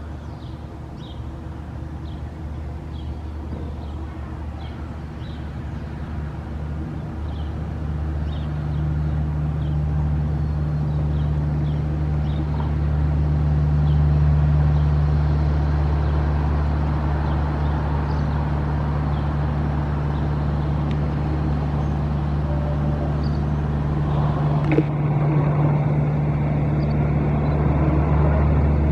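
A motor vehicle's engine running steadily with a low hum, growing louder over the first dozen seconds and then holding level, with faint short high ticks in the first half.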